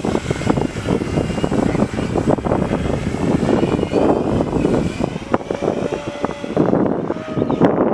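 Electric RC aerobatic plane's brushless motor and propeller whining, the pitch rising and falling with the throttle, under heavy wind buffeting on the microphone.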